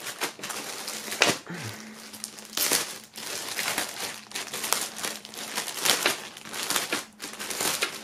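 Clear plastic packaging bag crinkling and rustling irregularly as hands handle and press on the jacket packed inside it.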